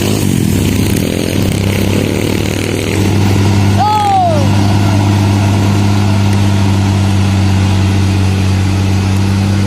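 Bus engine running with a steady low hum, amid voices. About four seconds in comes a single short call that rises and then falls in pitch.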